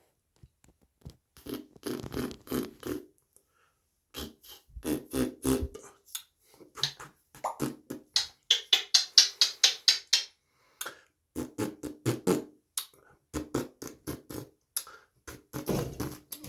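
Parrot making rhythmic runs of quick popping, clucking noises with short pauses between them, and a run of higher-pitched repeated calls in the middle.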